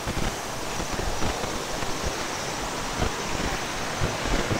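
Steady rush of running water from a mountain stream, with low irregular bumps of wind or handling on the microphone.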